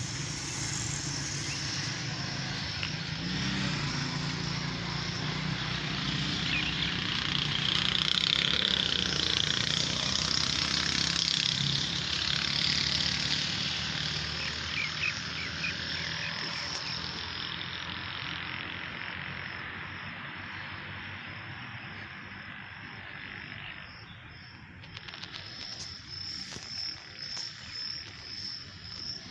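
Insects calling in the park trees, a dense high-pitched buzz that swells and fades, turning into even pulses of about two or three a second near the end. A low rumble under the first half fades away.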